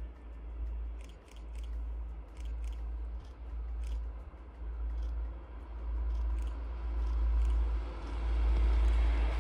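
A passenger railcar approaching along the line, its running noise growing steadily louder over the last few seconds, over a constant low rumble. Scattered faint crackling clicks are heard in the first half.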